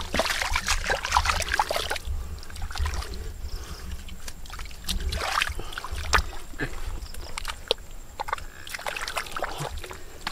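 Feet and hands splashing and sloshing in shallow muddy water, with irregular sharp wet clicks and a trickle of water.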